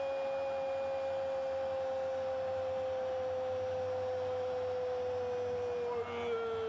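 A football commentator's long held goal cry, one sustained note sinking slowly in pitch, with a small catch about six seconds in, over stadium crowd noise.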